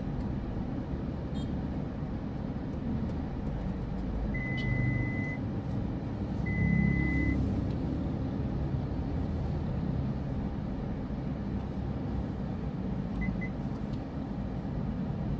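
Car engine running, heard from inside the cabin, with two steady electronic beeps of about a second each a few seconds in and two short pips near the end.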